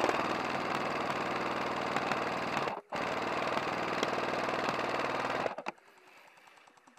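Airsoft RPK replica firing on full auto: two long bursts of about two and a half seconds each, a fast even rattle of shots with a brief break just under three seconds in, stopping about five and a half seconds in.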